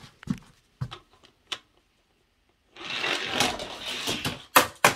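A die-cast Hot Wheels toy car rolling and rattling along plastic track for about two seconds, with a few light clicks before it and two sharp knocks near the end.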